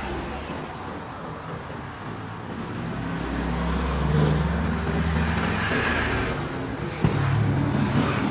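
Motor vehicle engine running close by, a low steady rumble that grows louder about three seconds in. A single sharp knock about seven seconds in.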